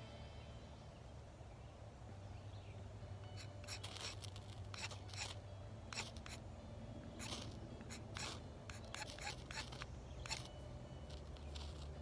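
A carbon-steel knife spine scraped down a ferro rod over tinder: about a dozen short, sharp, irregular scrapes, starting a few seconds in.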